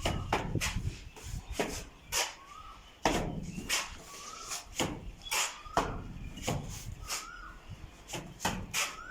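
A hand tool scraping over a rough surface in repeated strokes, about two a second, with faint short rising chirps between them.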